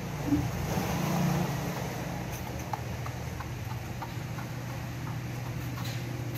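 Steady low hum under soft bumps and scattered small clicks of babies and hands moving about, with one louder bump just after the start.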